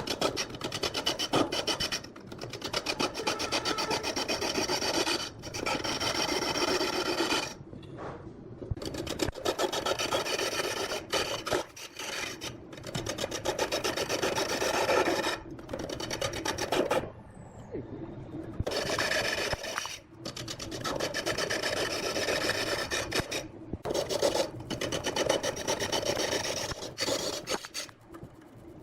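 Wood being worked on a spinning lathe: a turning tool or abrasive scraping the rotating workpiece in repeated passes of a few seconds each, with short breaks between passes.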